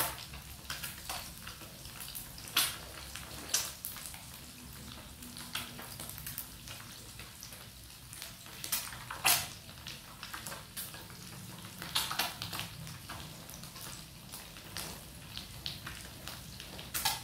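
Batter-coated boiled quail eggs deep-frying in hot oil: a steady sizzle full of crackling, with a few sharper, louder pops.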